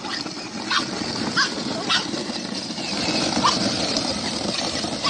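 A dog giving about five short barks over steady background noise.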